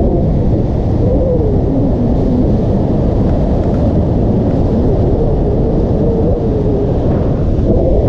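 Strong wind buffeting the camera microphone: a steady low rumble with a faint wavering whistle in it.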